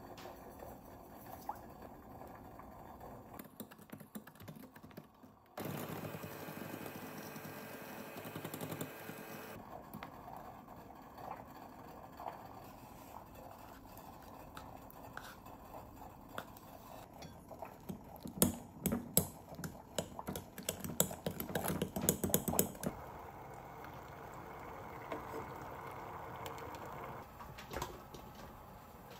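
Kitchen work with an electric hand mixer and a glass mixing bowl: the mixer runs steadily for about four seconds and stops abruptly, and later comes a quick run of clinks and knocks of metal beaters and utensils against the glass bowl.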